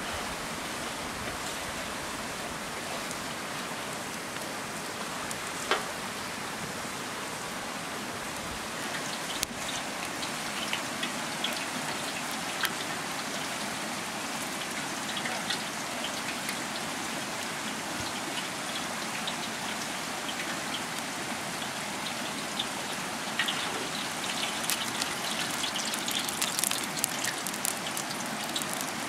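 Small wood cooking fire crackling under a pan of hot oil: a steady hiss with scattered small pops, the pops coming thicker near the end.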